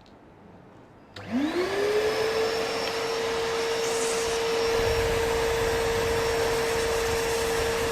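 Wet-and-dry vacuum cleaner's 1000 W suction motor switched on about a second in. It spins up with a quickly rising whine, then runs steadily at full speed. A brief hiss comes near the middle.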